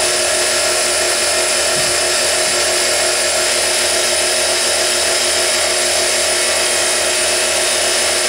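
Grizzly G0704 CNC mill spindle running steadily at about 4,650 rpm, an even machine whine. Its spline rattle against the quill is silenced by a bushing turned from a hockey puck, and it runs much quieter.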